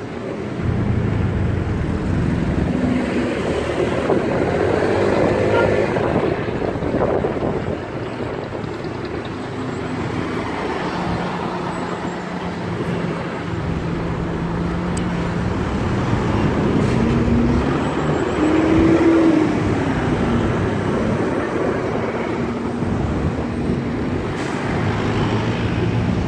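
Road traffic heard from a motorcycle riding through slow city traffic: cars, a bus and the motorcycle's own engine running together as a steady rumble. An engine tone swells up and falls back a little past the middle.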